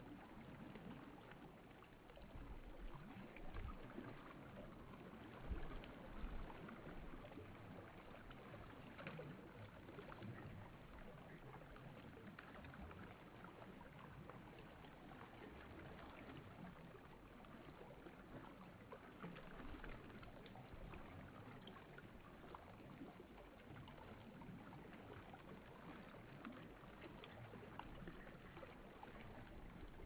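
Faint, steady rushing of a shallow stream running over stones, with a couple of brief low thumps about five to six seconds in.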